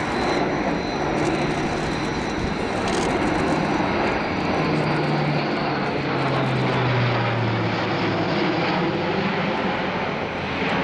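Airbus A400M Atlas flying past, its four Europrop TP400-D6 turboprops driving counter-rotating propellers with a steady, loud roar. A low propeller drone drops in pitch about halfway through as the aircraft passes.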